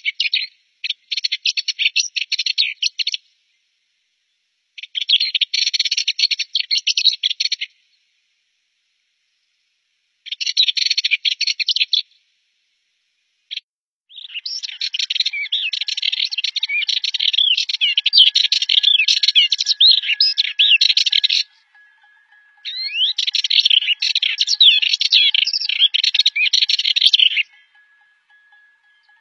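Rüppell's warbler singing short, scratchy, rapid chattering phrases with pauses between them. About halfway through, a Sardinian warbler takes over with longer runs of fast, scratchy, rattling song.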